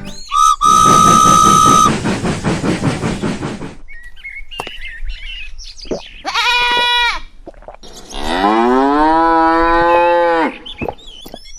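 Cow mooing: a long moo about eight seconds in that rises and then holds, with a shorter, higher call just before it. Earlier, a steady whistle-like tone sounds for about a second and a half, followed by a rhythmic chugging noise.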